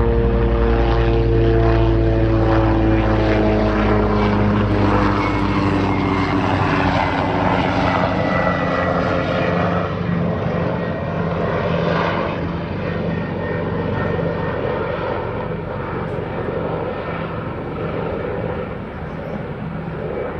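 Propeller aircraft engine sound effect. The engine tone falls in pitch over the first several seconds and gives way to a steady rush that slowly fades.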